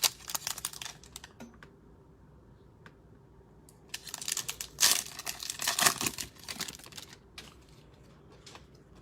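Cellophane wrapper of a trading-card cello pack crinkling and tearing as it is opened, with a short burst of crackling at the start and a longer, louder one from about four to seven seconds in.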